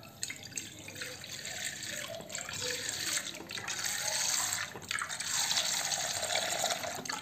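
Milk pouring in a steady stream from a carton into a metal kadai, splashing into the milk already in the pan. The stream gets louder in the second half and stops right at the end.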